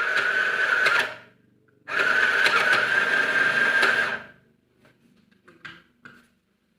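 Mini electric sewing machine running in two bursts, about a second and then about two and a half seconds, stopping briefly between, after the plug has been reseated so it powers on properly. A few faint clicks follow near the end.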